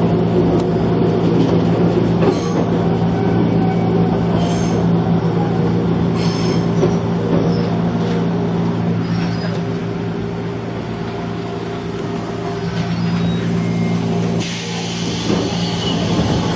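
Gakunan Railway electric train running, heard from on board: a steady low hum from the drive gear under a constant running noise, with a few short clicks over the rail joints. A brighter, higher hiss joins for about the last two seconds.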